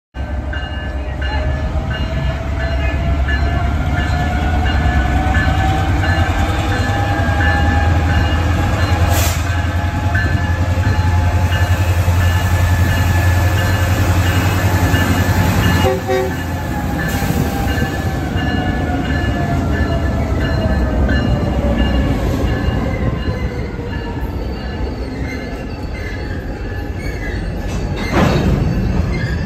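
EMD GP38-3 diesel-electric locomotive with a two-stroke V16 engine passing slowly, its engine running with a deep rumble that drops away about halfway through as it goes by. Loaded boxcars then roll past with wheels squealing and clanking near the end.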